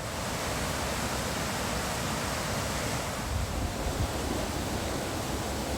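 Steady rush of flowing water, with wind buffeting the microphone.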